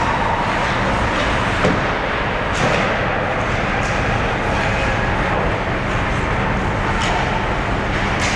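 Ice hockey rink ambience during play: a steady rink din with a few sharp clacks of sticks and puck.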